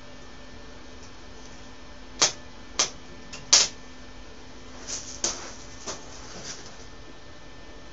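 A few sharp metallic knocks as metal parts are handled at the welding bench: three loud ones about two to three and a half seconds in, then several fainter taps, over a steady low hum.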